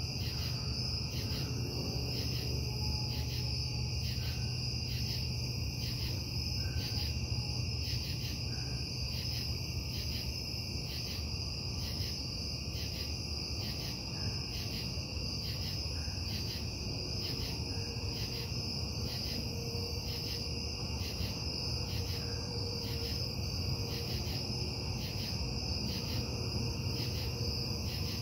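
Steady low industrial hum and rumble from a nearby metal-casting plant, carrying through the night as a noise nuisance. Over it, crickets chirp in a regular, even pulse.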